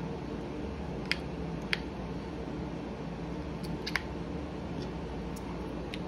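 AA alkaline batteries being pressed into the plastic battery compartment of a Bosch GLM 500 laser measure and the battery cover being fitted back on. A handful of short, sharp plastic-and-metal clicks, the loudest about four seconds in, over a steady low background hum.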